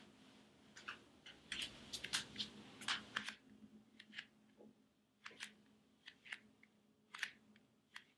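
A towel rubbing and squeezing damp hair: faint, irregular crunchy crackles coming every fraction of a second to a second.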